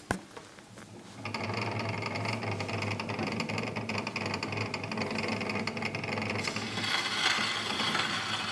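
A click, then about a second in a player starts a recording: a steady hum with crackle under it, growing brighter near the end as the playback comes up.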